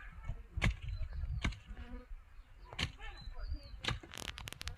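Weeding in wet garden soil: separate knocks and scrapes about once a second, with a quick run of clicks near the end. An insect buzzes close by.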